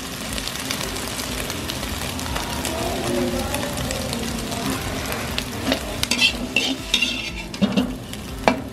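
Scrambled eggs sizzling in oil in a metal wok. A perforated metal skimmer scrapes and clinks against the wok as the eggs are scooped up, the scrapes coming sharply in the last few seconds.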